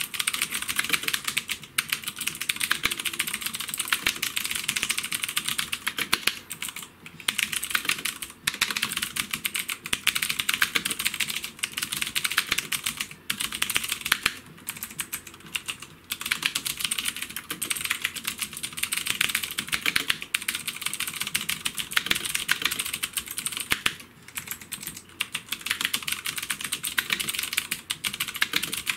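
Fast, continuous typing on a Havit HV-KB366L mechanical keyboard: a rapid stream of key clicks with brief pauses every few seconds.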